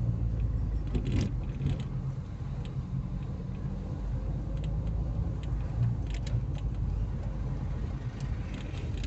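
Car engine and road noise heard from inside the cabin while driving, a steady low rumble with scattered small clicks and rattles.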